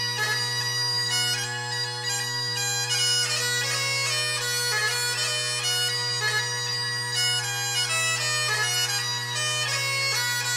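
Great Highland bagpipes playing a tune: the chanter's melody moves over the steady hum of the drones, with a low drone and another an octave above.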